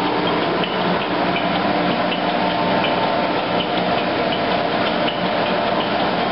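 1982 Broadbent oil country lathe running at 40 RPM, with a steady machine running noise, and the jaws of its rear manual 4-jaw chuck clinking lightly and repeatedly as the spindle turns.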